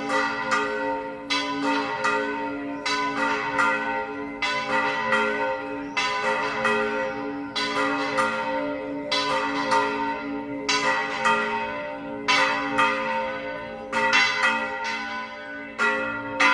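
Church bells of the bell tower of the Mosque–Cathedral of Córdoba pealing: several bells struck in quick, uneven succession, each ringing on over a steady hum from the larger bells.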